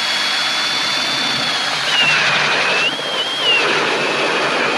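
Milwaukee M18 Fuel cordless drill spinning an Eskimo 8-inch pistol bit ice auger into lake ice. The motor's high whine drops in pitch about two seconds in, recovers briefly, then sags again as the auger loads up in the ice.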